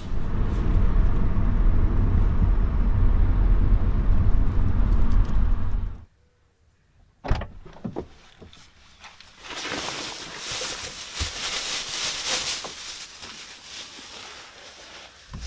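Low steady rumble of a car driving, heard inside the cabin, that cuts off abruptly about six seconds in. A single sharp click follows a second later, then a softer rustling hiss.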